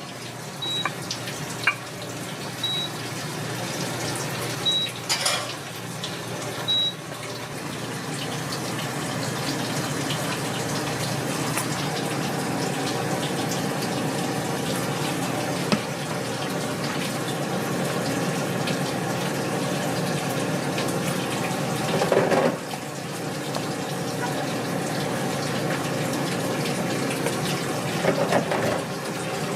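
Water running steadily from a kitchen tap. Four short high beeps come about two seconds apart near the start, and there are a few brief knocks.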